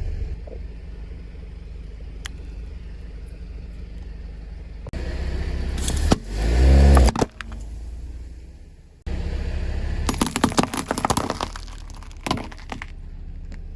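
Car engine and tyres rolling, with sharp crunching and cracking as the wheel crushes brittle objects. The sound changes abruptly about five and nine seconds in, and the densest run of cracks comes near the end.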